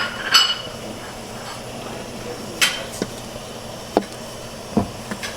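Scattered knocks and clinks of cookware and utensils, about six separate strikes, the one near the start ringing briefly like metal or glass.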